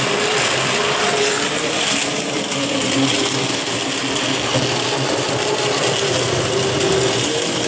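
Large commercial immersion blender running with its shaft submerged in a pot of lobster bisque, puréeing the soup: a steady motor whine that wavers slightly in pitch.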